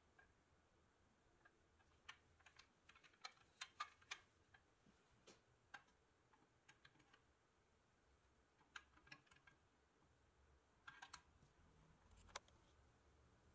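Near silence with faint, irregular small clicks and taps, bunched a few seconds in and again near the end.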